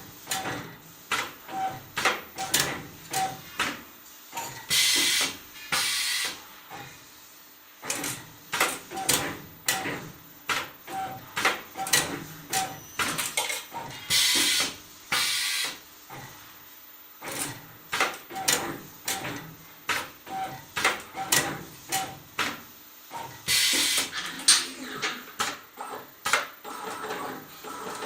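CNC wire-bending machine at work, bending steel wire: a quick series of mechanical clicks and knocks, several a second, broken by a few short hissing bursts.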